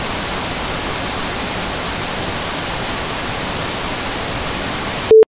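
Steady television static hiss, which stops suddenly about five seconds in and gives way to a short, loud beep.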